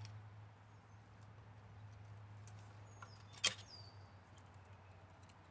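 One sharp metallic click about three and a half seconds in, from hands and tools working on the carburetor linkage, over a faint steady low hum.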